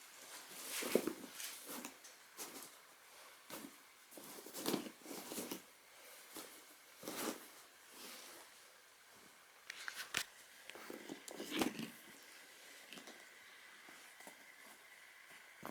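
Irregular rustling and handling noises from unpacking a leather briefcase, with a few sharper clicks about ten seconds in.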